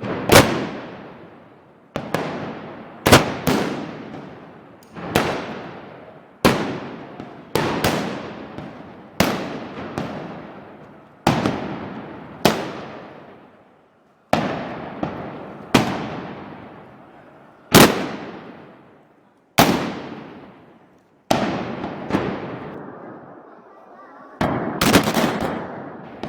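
A long string of loud black-powder bangs, about one every one to two seconds and sometimes two in quick succession. Each bang is followed by a long echoing decay.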